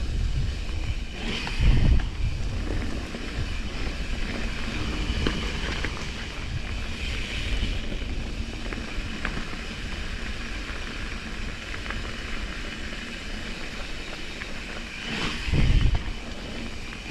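Mountain bike rolling along a dirt trail: steady tyre and trail noise with wind buffeting the microphone. Heavier low rumbles come about a second and a half in and again near the end.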